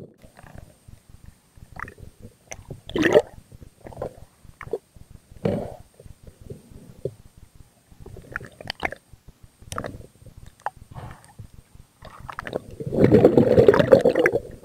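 Underwater sound of a spearfisher's gear being handled: scattered sharp clicks and knocks as the catch is worked onto a stringer. Near the end there is a louder rush of bubbling water lasting about two seconds.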